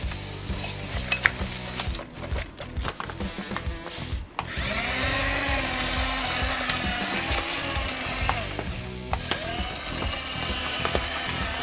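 Small electric gear motors of a micro RC excavator whining as it drives on its plastic tracks and swings its arm, the pitch rising and falling. There are clicks and knocks in the first few seconds, and background music plays.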